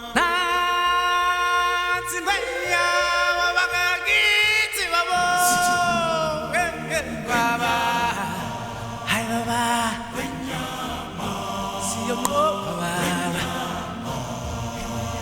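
Music with chant-like singing: long held vocal notes that waver and glide.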